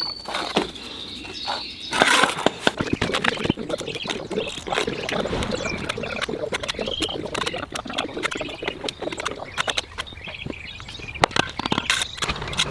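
Busy, irregular tapping, clinking and scraping of bricklaying work: bricks and a steel trowel knocking and scraping in mortar, with a louder cluster of knocks about two seconds in.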